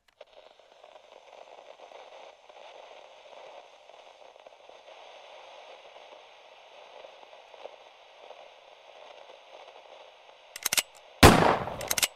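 A faint, steady hiss like radio static, then near the end two quick clicks followed by one loud, sharp bang with a short decaying tail.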